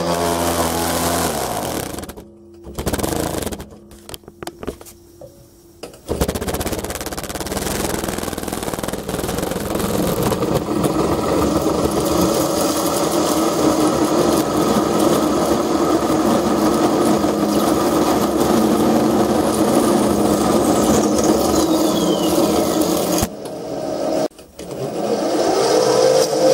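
Mini lathe's spindle motor and a carbide parting tool cutting into a hex bar. The spindle winds down about a second in, then after a few quieter seconds it runs steadily under the cut. It stops about 23 seconds in and spins up again just before the end.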